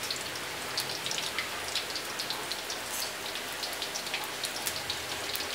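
Small flour-battered mairo fish deep-frying in hot oil: a steady sizzle dotted with many small crackles and pops, the fish still cooking toward golden brown.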